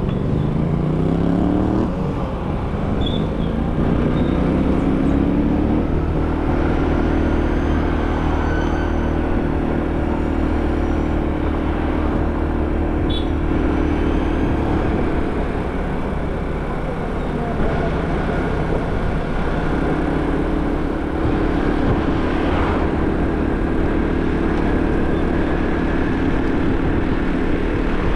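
Motor scooter's engine pulling away with a rising whine, then running at a steady cruising pitch. It eases off in the middle and settles back to a steady pitch about twenty seconds in.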